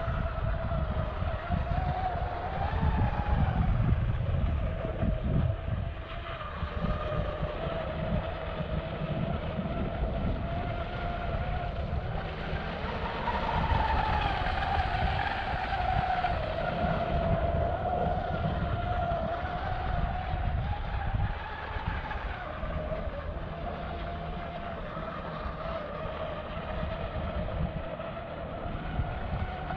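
Pro Boat Blackjack 42 RC catamaran running on 8S, its brushless motor's high whine rising and falling with the throttle and climbing highest about halfway through, over a steady low rumble.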